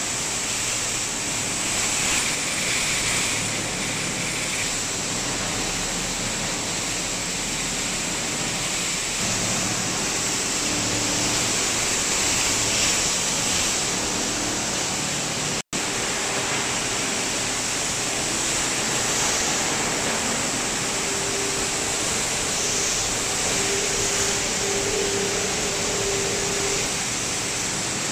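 Rigid-plastic washing line running: a steady, loud rushing noise of machinery and water. It cuts out for an instant about halfway through.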